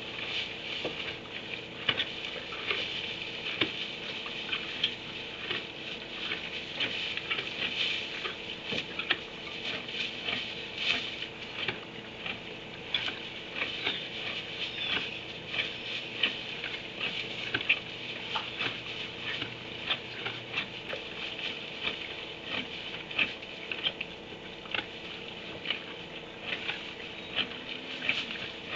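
Irregular small clicks and rustling in a barn stall's straw bedding, over a faint steady electrical hum.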